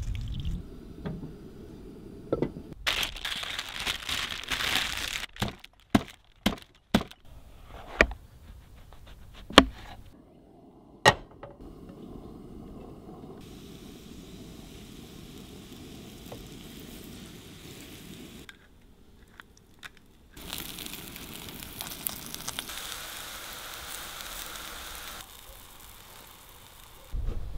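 A series of sharp clicks and knocks, then the steady sizzle of porcini (Boletus edulis) slices frying in oil in a pan.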